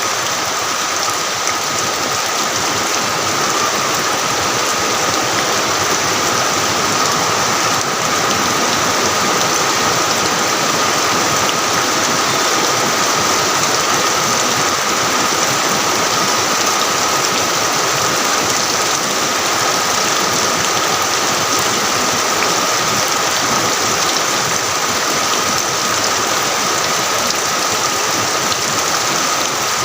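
Heavy rain falling steadily: an even, unbroken hiss, with a faint steady high tone running beneath it.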